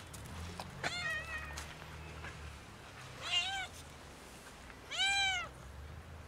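Stray cat meowing three times, each meow a short arching call, as it asks for food. A steady low rumble runs underneath.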